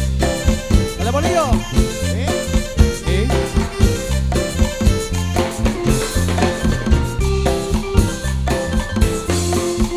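Cumbia band playing an instrumental passage: bass and drums in a steady beat under a pitched melody, with no singing.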